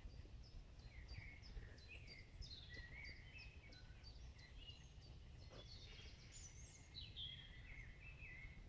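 Several songbirds singing faintly at once: quick repeated high chirps and short trills, some falling in pitch, overlapping one another, over a faint low rumble.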